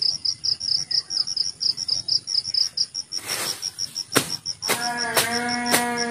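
Crickets chirping in a fast, even, high pulse. About three seconds in there is a brief swish, and in the second half come sharp knocks about every half second and a long call that drops in pitch as it ends.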